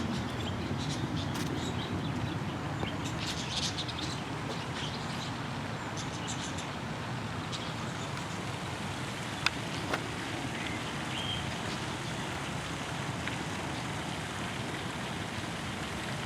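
Small birds chirping now and then over a steady outdoor background noise, with two sharp clicks about halfway through.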